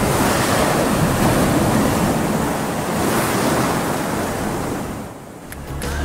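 Heavy ocean surf: big waves breaking and washing over rocks, a steady rushing noise that dips in level about five seconds in.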